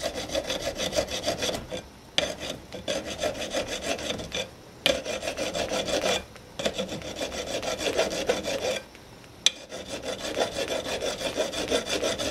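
Flat hand file rasping back and forth over a gold-anodized aluminium roller rocker arm held in a bench vise, in runs of quick, even strokes broken by short pauses, with one sharp click about nine seconds in. The filing smooths out the grinding scratches left where the rocker body was ground down to clear the rocker stud.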